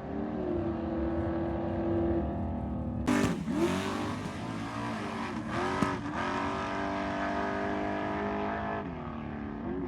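Ford Mustang SVT engine running under load, its pitch mostly held steady. The pitch dips and climbs back several times, with a loud rough burst about three seconds in.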